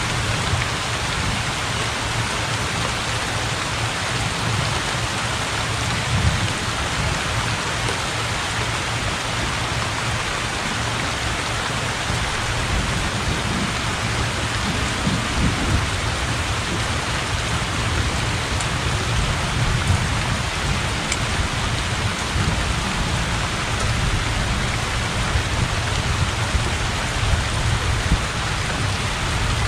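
Heavy rain pouring steadily onto open water, with a low rumble of thunder underneath.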